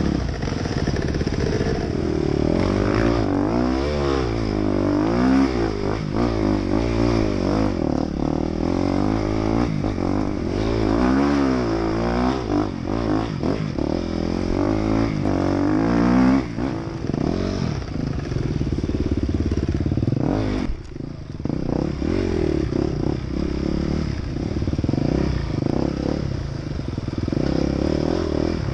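Enduro motorcycle engine heard from on board the bike, revving hard with its pitch climbing and falling again and again under acceleration. The throttle closes briefly about three-quarters of the way through, then the engine picks up again.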